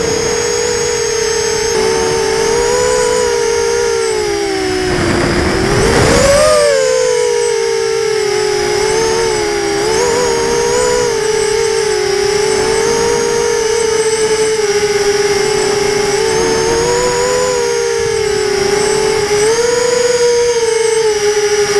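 Small quadcopter's electric motors and propellers whining, heard from the aircraft's own onboard camera. The pitch holds fairly steady with small wavers as the throttle changes, dips about four seconds in, then rises sharply around six seconds with a brief rush of wind noise.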